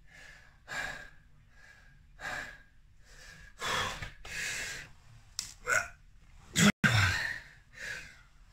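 A man's heavy, laboured breathing: repeated gasps and sighing exhalations, about one a second at first and then longer and deeper, a sign of exhaustion in the middle of a max-reps ab-roller set. A brief strained vocal sound comes a little after halfway, and a short sharp knock, the loudest sound, comes just before the end.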